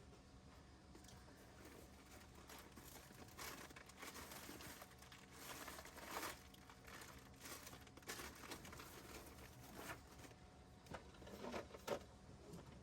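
Faint crinkling and rustling, off and on, as something like a bag or wrapping is handled, with a few small clicks.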